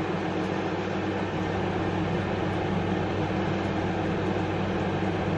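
Steady machine hum: an even rushing noise with a low drone that holds unchanged throughout.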